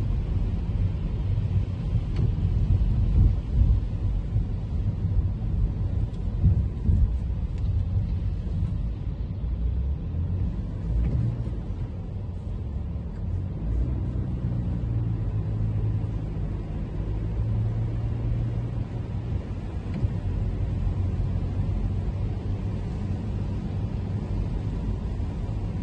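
Steady low rumble of a Toyota Camry driving on wet city streets, with a faint hiss of tyres on the wet road above it.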